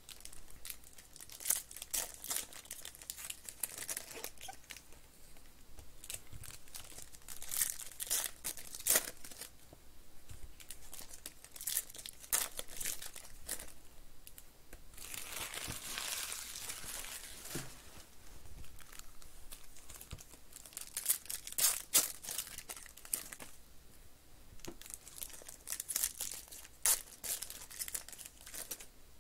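Foil wrappers of Panini Prism Quick Pitch baseball card packs being torn open and crinkled by hand: a run of irregular crackles, with a longer tearing rip about halfway through.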